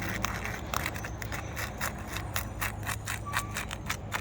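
A 5-in-1 tool scraping and prying under brittle roof shingles to loosen them, giving a run of irregular clicks, crackles and scrapes.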